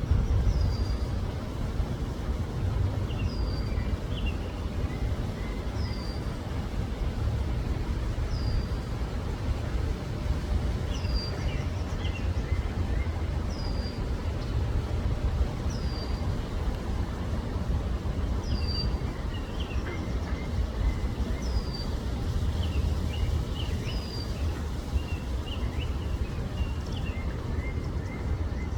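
A bird calling over and over, one short high down-slurred note about every two and a half seconds, with other birds chirping more softly in between. A steady low rumble runs underneath.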